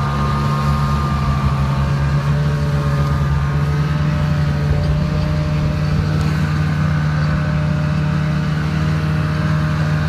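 Snowmobile engine running at a steady cruising speed, heard from the rider's seat while under way, with a strong even drone that barely changes pitch.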